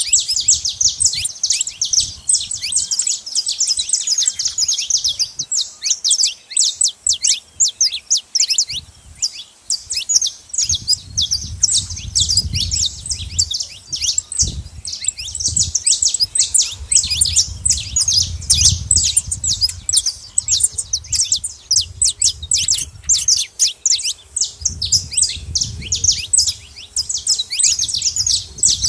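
A flock of saffron finches chirping busily, with many quick high notes overlapping without a break. A low rumble comes and goes underneath.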